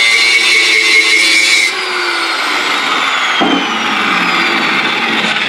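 Angle grinder with a cut-off disc cutting through a rust-seized wheel bolt on a Snapper push mower, a loud steady whine. Under two seconds in it stops cutting, and the disc winds down with a slowly falling whine.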